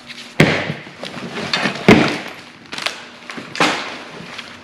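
Rummaging through a barrel of plastic dolls and toys: rustling broken by about four knocks and clatters, the loudest about two seconds in.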